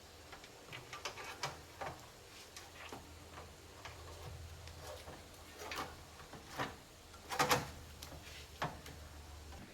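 Irregular small clicks and taps of hands working on electronics, loudest about seven and a half seconds in, over a steady low hum that stops just before the end.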